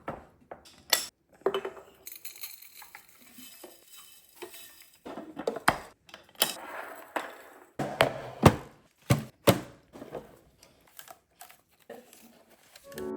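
Kitchen storage containers and jars clinking and knocking as they are handled, filled and set down: a string of irregular sharp clinks and taps, several of them loud.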